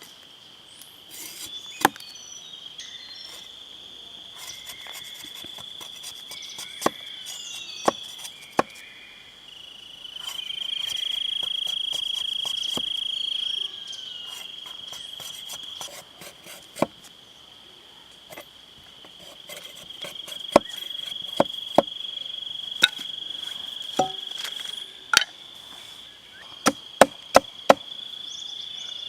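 Forest insects droning steadily at one high pitch, louder for a few seconds near the middle. Sharp knocks sound over it, a few at a time early on and in quick runs near the end.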